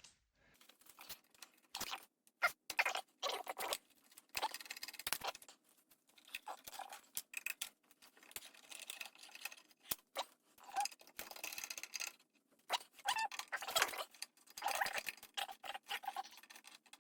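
A small hand tool turning hard-to-reach screws in a cassette deck's chassis: irregular bursts of scratchy scraping and clicking, with short pauses between them.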